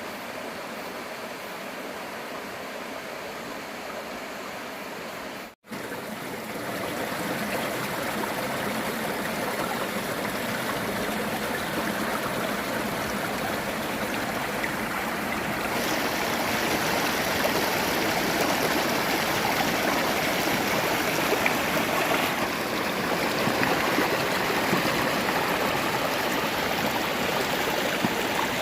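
Mountain stream running over rocks, a steady rush of water. It drops out for an instant about five seconds in and comes back louder.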